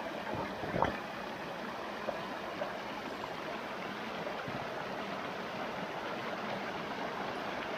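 Fast, shallow stream rushing over rocks in a steady wash of water, with one brief louder splash about a second in.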